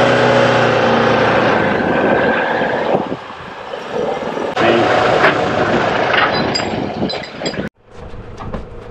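4WD engines revving hard under load while a stuck ute is snatched out of a ditch on a recovery strap. It holds a steady, strained pitch for the first few seconds, surges again about halfway through, and cuts off suddenly near the end.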